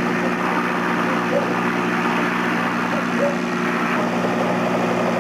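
Robinson R22 helicopter running close by, its piston engine and main rotor making a steady, even drone as it lifts off the grass.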